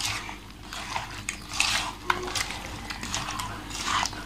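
A hand squishing and kneading chopped onion, tomato and green chilli with curd and spice paste in an aluminium pot: irregular wet squelches with scrapes against the pot's side.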